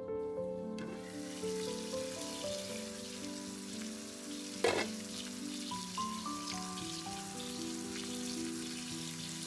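Diced potatoes and onions frying in a cast-iron skillet, a steady sizzle that starts about a second in. One sharp click comes about halfway through.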